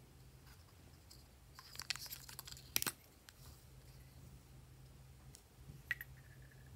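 Plastic lipstick tubes handled in the fingers: a quick run of light clicks and rattles about two to three seconds in as a cap is pulled off, and a single small click near six seconds in.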